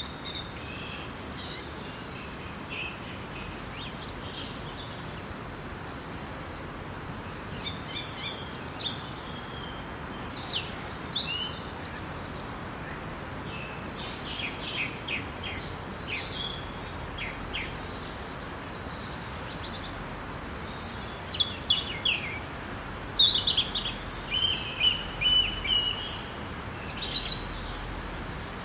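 Daytime forest ambience: several songbirds chirping and trilling over a steady background hiss, the calls growing louder and busier past the two-thirds mark.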